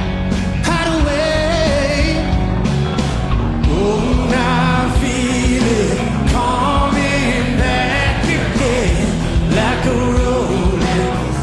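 Rock band playing electric guitars, bass and drums, with a male voice singing over it in long, wavering held notes.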